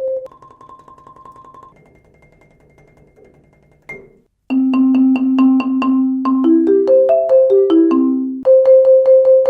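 Marimba played with Marimba One Wave Wrap yarn mallets. A soft passage fades away, and after a short break about four seconds in, loud chords are struck about four times a second, then a rising run of notes and a repeated single note.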